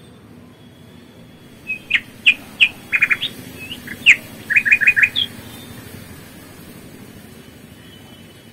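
A small bird chirping: a quick run of short, high chirps, some in fast clusters of three or four, from about two seconds in to just after five seconds.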